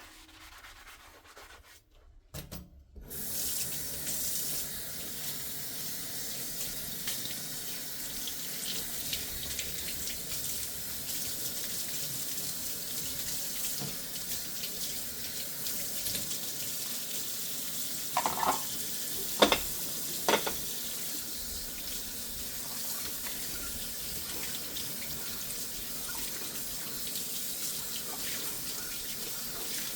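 Kitchen faucet water running steadily into a sink during hand dishwashing, turned on about three seconds in. About two-thirds of the way through, dishes clink a few times, one with a short ring.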